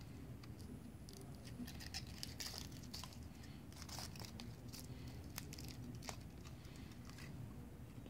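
Foil-and-paper wrapper of a small chocolate being peeled off by hand: faint, scattered crinkling and tearing.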